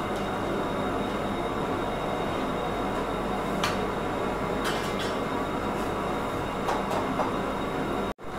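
Large aluminium pot of pulav rice and vegetables at a hard, frothing boil, with a steady rushing noise throughout. A metal ladle stirring in the pot knocks against it a few sharp times in the middle. The sound cuts out for a moment near the end.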